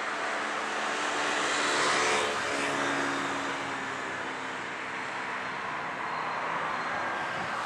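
Steady rushing engine noise with faint low droning tones, swelling about two seconds in and easing off after.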